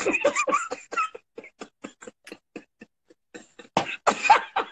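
Men laughing hard in short, rapid breathless bursts over a video call. The bursts thin out to faint gasps, then break out loudly again near the end.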